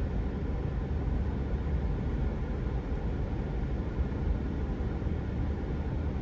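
Steady low rumble of a pickup truck driving slowly, heard from inside the cab: engine and tyre noise.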